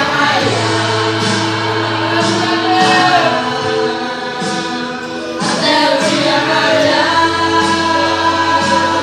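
A group of voices singing a gospel hymn together over long held instrumental chords.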